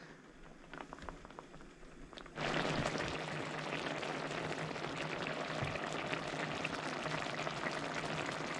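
Tomato salsa bubbling and spitting in a skillet as it boils down to reduce its juice. A few faint pops at first, then from about two and a half seconds in a steady, dense crackle of bubbling.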